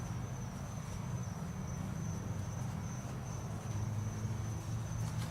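Monster Moto minibike's small single-cylinder engine idling steadily, a low even hum, with crickets chirping in a steady high tone.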